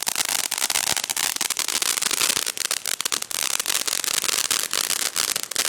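Consumer ground firework going off: a steady hiss with dense, rapid crackling pops.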